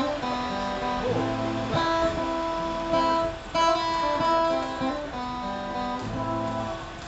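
Acoustic guitar strummed in chords, each chord struck and left to ring for about a second before the next.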